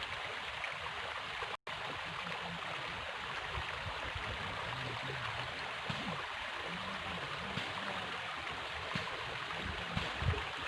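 Steady rush of flowing river water, with a very brief dropout about a second and a half in.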